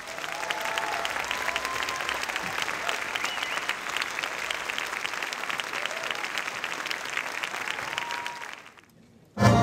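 Theatre audience applauding, the clapping dying away about eight and a half seconds in; orchestral music starts up just before the end.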